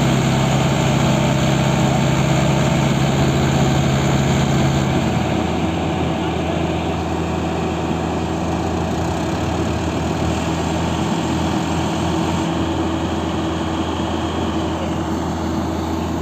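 Diesel engines of a Mahindra Yuvo 575 4WD tractor and a Yanmar AW70GV combine harvester running together, bogged in a muddy paddy field. A strong, higher engine note drops away about five seconds in, and a steady lower drone carries on.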